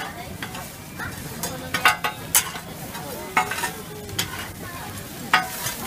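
Okonomiyaki frying on a large flat-top griddle: a steady sizzle, with sharp scrapes and taps of a metal spatula on the hot plate, several of them in the middle.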